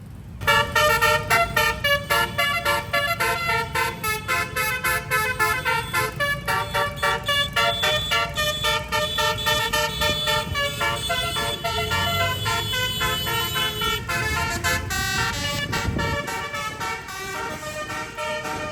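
Bus telolet horn, a 12-note stereo air horn with 24 trumpets, playing a long fast melody of many short pitched notes in a quick pulsing rhythm.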